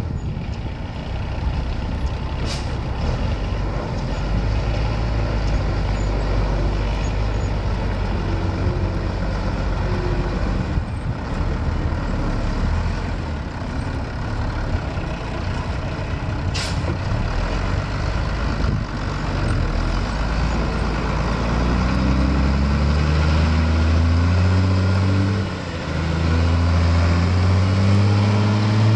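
International feed-mixer truck's engine running as the truck drives, with two short high hisses early on and around the middle. Near the end the engine revs up, drops back once at a gear change and climbs again.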